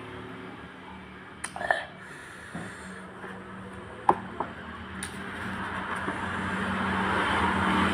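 A road vehicle passing, its noise growing steadily louder through the second half, over a low steady hum, with a few short sharp clicks in the first half.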